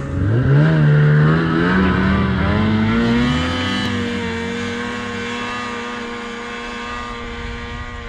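Snowmobile engine revving up sharply, its pitch climbing for a few seconds and then holding steady at high speed while slowly getting quieter. It is being run to test a rebuilt clutch that had been sticking.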